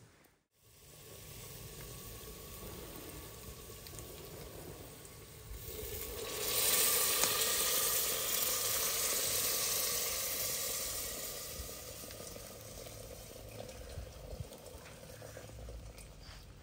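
Food sizzling in hot oil in a pan: a steady sizzle that swells sharply about six seconds in, stays loud for a few seconds, then slowly dies back down.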